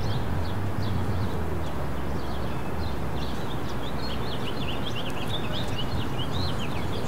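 Outdoor city ambience: many small birds chirping in quick, short notes over a steady low rumble of traffic.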